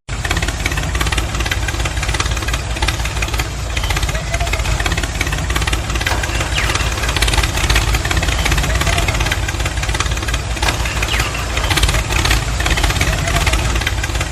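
An engine running steadily with a rough, low rumble.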